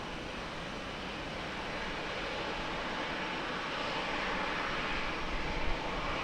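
Aircraft engine noise, a steady rush that slowly grows louder, typical of an aircraft on its takeoff roll.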